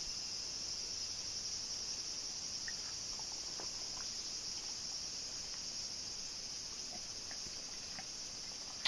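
Faint, steady high-pitched chirring of insects, with a few faint clicks about three to four seconds in.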